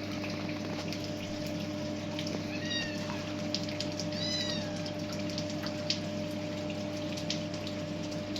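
A kitten mewing twice: short, high-pitched calls that rise and fall, about a third of the way in and again about halfway. A steady low hum and scattered faint ticks run underneath.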